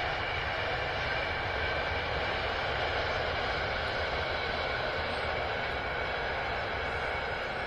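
Avanti West Coast Class 390 Pendolino electric train passing at speed: a steady rushing hum with a faint whine in it.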